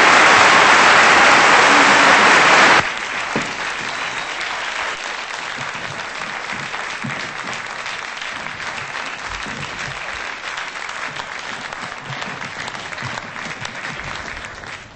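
Theatre audience applauding. The clapping is loud at first and drops suddenly about three seconds in, then carries on steadily and fades out near the end.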